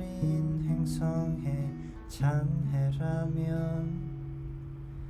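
Crafter acoustic guitar with a capo, strummed and fingered chords ringing out, with a new chord struck about two seconds in and the low notes left to ring near the end.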